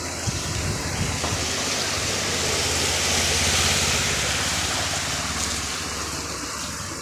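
A motorcycle rides through floodwater past the microphone: a low engine hum under the rush and hiss of spray thrown up by its wheels, swelling to its loudest about halfway through and then fading as it moves away.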